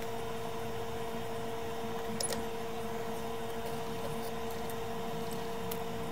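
Steady whine of a small electric blower motor on the electronics repair bench, with a few faint ticks about two seconds in.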